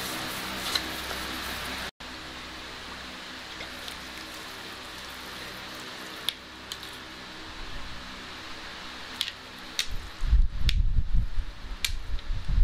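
Steady room hum with a few light clicks and taps, then bursts of low rumble near the end.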